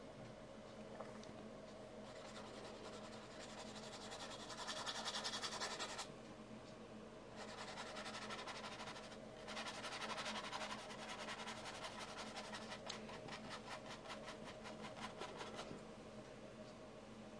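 Paintbrush scrubbing and stroking paint across a painting's background to blend it soft: a faint dry brushing that pauses briefly about six and nine seconds in, then turns into quick, rhythmic back-and-forth strokes near the end.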